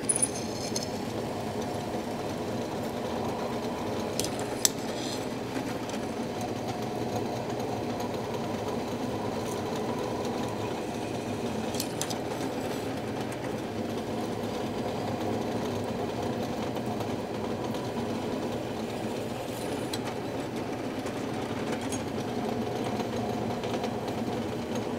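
Electric drill running steadily as it drills 3/16-inch screw holes through hand-forged 1/8-inch iron flat-bar strap hinges, with a couple of light metal clicks.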